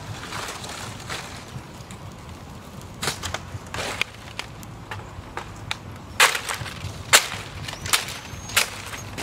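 Dry twigs cracking and snapping in and around a small open twig fire: scattered sharp cracks, with four louder ones about a second apart near the end.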